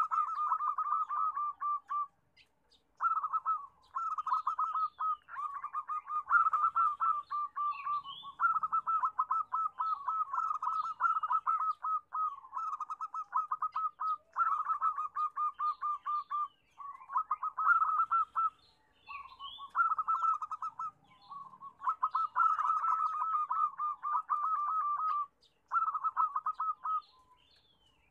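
Zebra dove (perkutut) song: runs of rapid staccato cooing notes, phrase after phrase, with short breaks between phrases.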